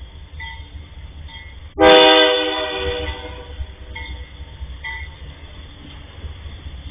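Train horn sounding one loud, sudden blast about two seconds in that fades over about a second, over the steady low rumble of a train at a level crossing.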